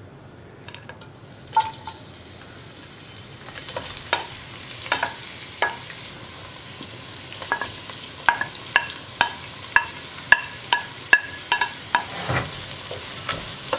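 Sliced onions sizzling as they drop into hot sunflower oil in a non-stick pan, with a run of sharp clinks as a spoon scrapes and taps them off a ceramic plate, mostly in the second half. The sizzle builds a few seconds in as more onion lands in the oil.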